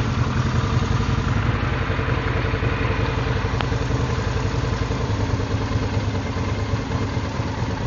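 Kawasaki VN 1500 Drifter's V-twin engine idling steadily, with a single light click about three and a half seconds in.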